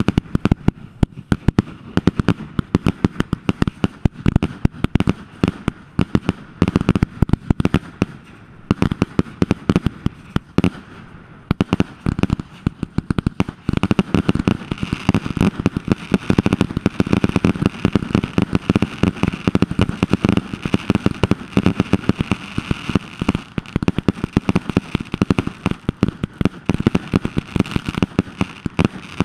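Fireworks going off in a fast, dense string of bangs and crackles, thickening into an almost continuous rattle from about halfway.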